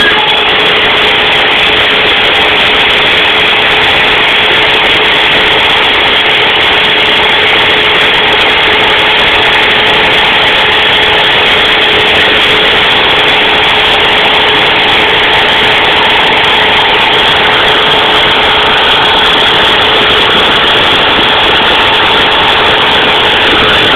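CNC router spindle running at a steady speed while milling slots into a metal waveguide: a loud, even whine and cutting noise with no change in pitch.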